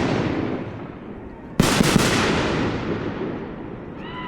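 Fireworks shells exploding: the tail of one big blast dies away, then about a second and a half in another loud boom goes off with a couple of quick cracks right after it, its rumble rolling on and slowly fading.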